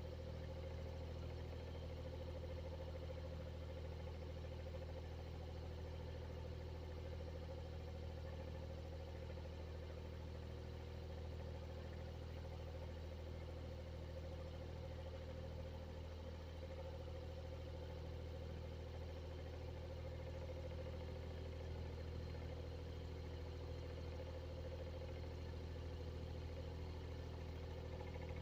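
Exhaust fan running steadily: an unchanging motor hum, with a strong low drone and a steady higher tone above it.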